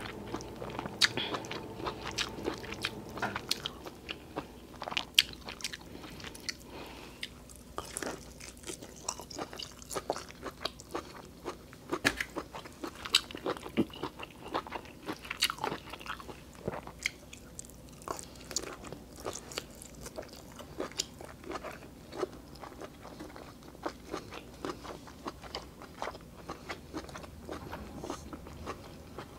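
Close-up chewing of lobster meat: many small, sharp wet mouth clicks and smacks, irregular throughout.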